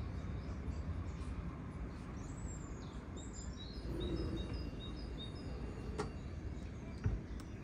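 Steady low background rumble with faint, short high bird chirps repeating through the middle, and two light clicks near the end.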